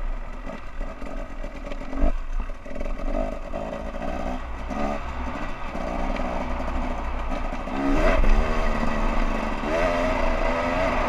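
Off-road vehicle engine running as it rides along a snowy trail, its pitch rising as it revs up about eight seconds in and again near the end.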